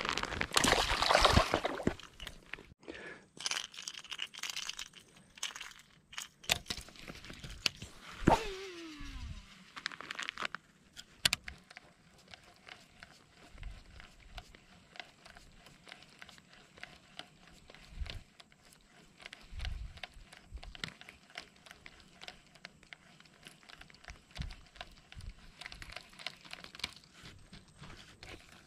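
Fishing tackle being handled: a rustling, scraping burst at first, then about eight seconds in a click and a falling whine like a reel spool spinning down on a cast, followed by steady rapid light clicks of a reel being cranked.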